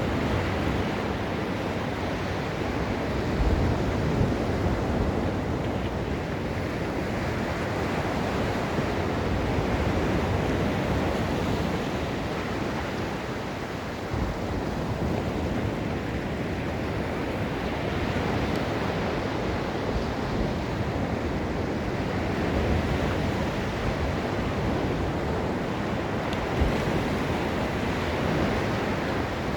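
Ocean surf washing onto a beach: a continuous wash of noise that swells and eases over several seconds, with wind now and then buffeting the microphone in low thumps.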